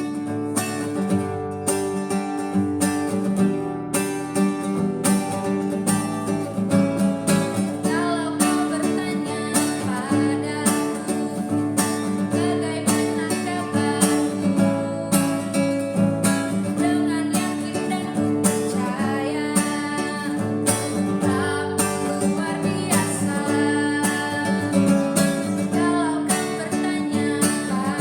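Acoustic guitar strummed at a steady beat, accompanying a praise song.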